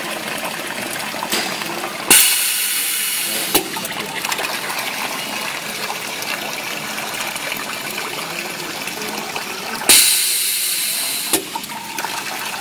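Semi-automatic filling machine dispensing liquid twice: each cycle is a sudden loud gushing rush that fades over about a second and a half and ends with a sharp click as the fill stops, over the machine's steady hiss.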